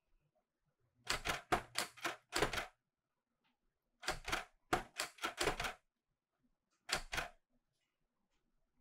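Clover 810S typewriter keys striking the paper in three quick runs of clacks, a short pause between each, the last run only two strokes.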